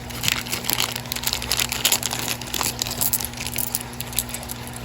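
Plastic packaging crinkling in irregular crackles as small bags of beads are handled and opened.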